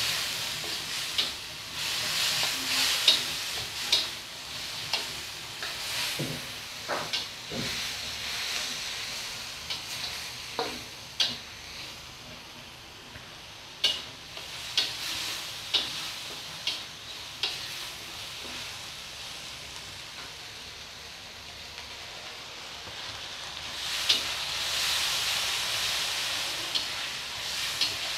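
Onion-and-spice masala sizzling in mustard oil in a steel wok as it is fried down, stirred with a spatula that scrapes and clicks against the pan. The sizzle is loudest at the start, dies down through the middle and swells again near the end.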